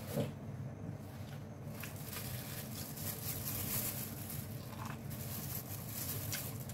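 Quiet eating sounds: biting into and chewing sweet corn, with the crinkle of a thin plastic food glove, over a steady low background hum.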